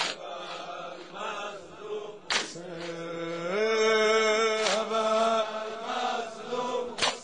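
A voice chanting a slow Persian noha, a mourning elegy, in long held notes with no words. A sharp strike cuts in about every two and a half seconds.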